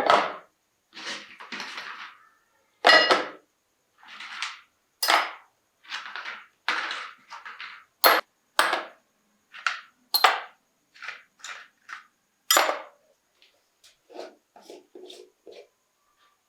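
Small metal parts and tools clinking, knocking and scraping in about twenty irregular, separate strokes, some sharp with a brief ring and others short scrapes, the last few fainter.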